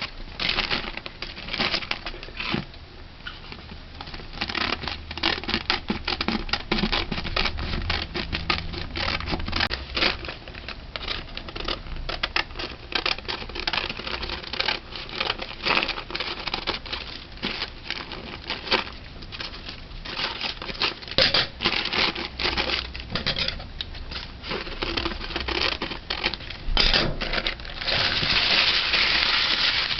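Sheet of baking paper being cut out and handled: a busy run of crinkling, crackling rustles and small snips, with a steadier rustle near the end.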